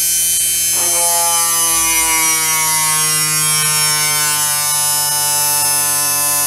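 Washing machine universal motor running at high speed with a whine and brush hiss, braked by a piece of wood pressed against its shaft. Its pitch slowly falls as the speed sags under the load without stalling, held up by the tacho-feedback speed controller.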